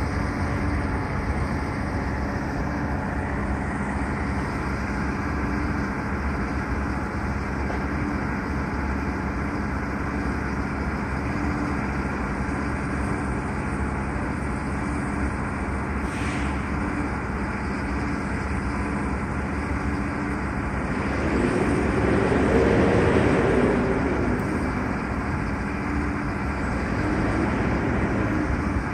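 Heavy truck engine running steadily with a low rumble, swelling louder for a few seconds about two-thirds of the way through.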